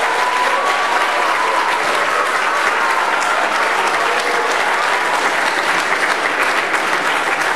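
Audience applauding, dense and steady, with a few faint voices calling out in the first couple of seconds.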